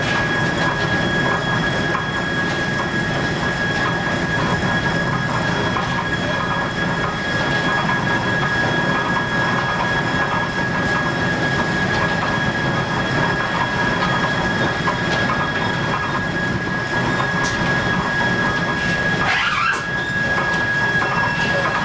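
Steam-driven sawmill machinery running steadily: a dense mechanical rattle and rumble with a constant high whine over it. A short squeal slides in pitch near the end.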